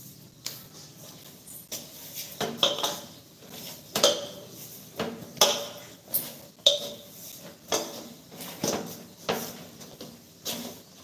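Stainless steel bowl knocking and clinking on the counter as food is worked in it by hand: irregular metallic knocks with a short ring, about one a second.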